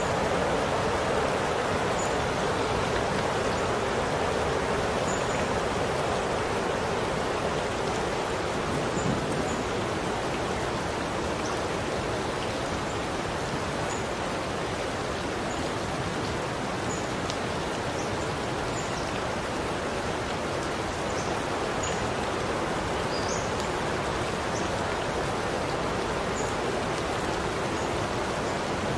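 Steady rain falling, an even hiss with scattered small ticks of individual drops; no thunder.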